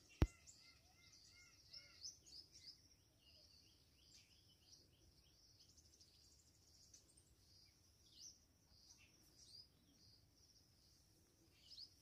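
Faint woodland ambience: birds chirping, with a quick run of short repeated calls in the first two seconds and scattered chirps after, over a steady high insect buzz. A single sharp click sounds just after the start.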